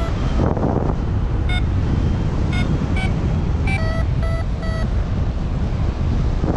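Airflow buffeting the action camera's microphone in flight, a steady low rush. Over it, a paragliding variometer gives about seven short beeps, sparser and irregular, which signal that the glider is climbing in lift.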